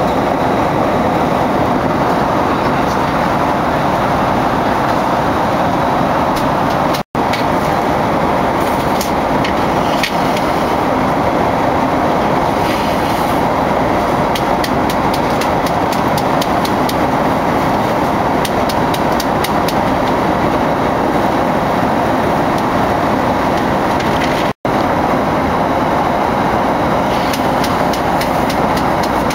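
Steady rushing cabin noise of a jet airliner in flight, a loud even roar of engines and airflow. It drops out abruptly to silence twice, briefly, at about 7 and 24 seconds in.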